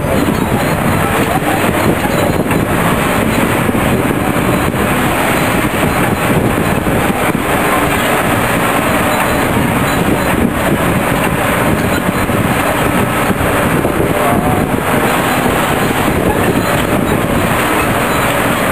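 Steady running and rattling of a moving vehicle, heard from on board, with road noise throughout.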